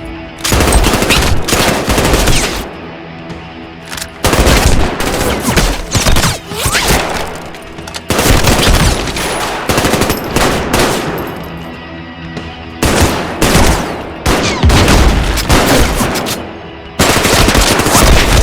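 Automatic gunfire sound effects in repeated bursts of rapid shots, each burst lasting one to two seconds with short lulls between them, over background music.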